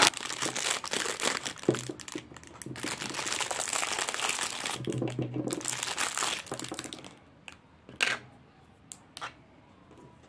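Clear plastic wrapping crinkling and rustling as a small plastic figure is unwrapped by hand. It is followed near the end by a few light, separate clicks.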